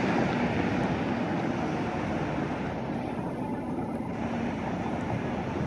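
Steady outdoor urban background rumble, the low hum of distant traffic.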